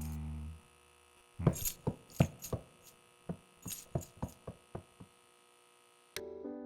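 Foley sound effects: a low electric hum cuts off about half a second in, then a string of about fifteen sharp, irregularly spaced clicks and taps follows over three and a half seconds. A short pitched tone starts near the end.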